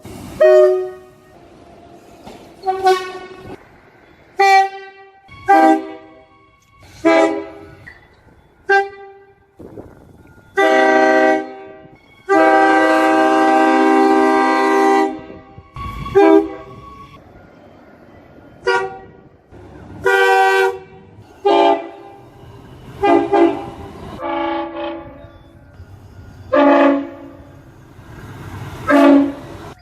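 Train horns sounding a string of short blasts, one every second or two, with a longer blast of about three seconds near the middle.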